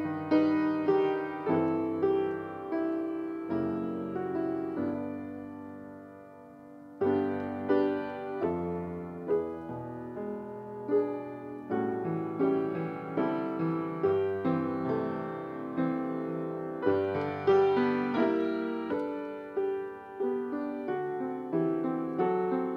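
Solo piano playing chords under a melody line. About five seconds in, one chord is left to die away for a couple of seconds before the playing resumes.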